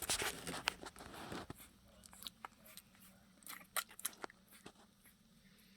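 One-week-old mini Bernedoodle puppies nursing at their mother's teats: scattered small wet sucking and smacking clicks. A noisy rustle fills the first second and a half.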